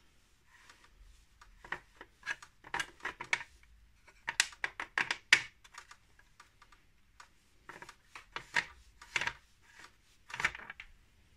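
Hard plastic clicking and rattling as hands work a 3D-printed robot arm's forearm loose at the elbow joint. The clicks come in several quick bursts with short pauses between them, the loudest near the middle.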